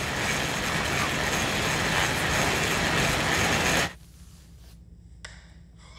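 Loud steady rushing noise, like static, that cuts off suddenly about four seconds in, followed by a couple of faint clicks.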